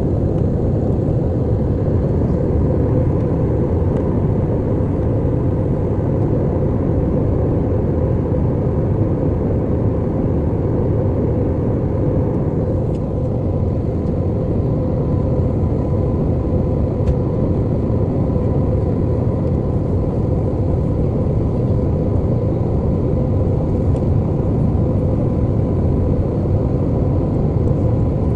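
Steady engine and air noise inside an airliner cabin, with a faint, thin steady tone running through it.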